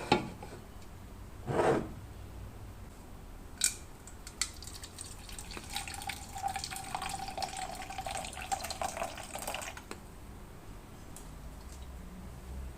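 Liquid being poured into a cup or jug for about five seconds, splashing with a faint steady tone as the vessel fills, then stopping. A dull thump and a sharp click come before the pour.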